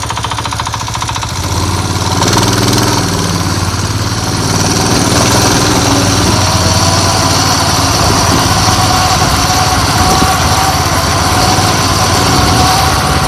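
A small engine with a centrifugal governor, running as the machine drives off, getting louder about two seconds in and then running steadily. The owner is listening for a knock that comes only when the throttle is closed, which he suspects is from bearings.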